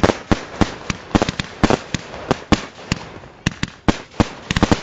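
Fireworks going off close by in a rapid, irregular string of sharp bangs and cracks, several a second, thinning briefly about three seconds in.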